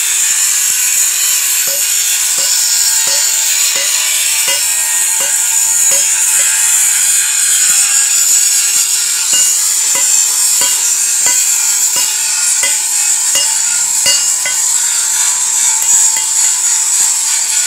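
Hammer blows on steel in a steady rhythm, about three strikes every two seconds, each with a short metallic ring. Under them runs a power tool with a loud, steady high whine.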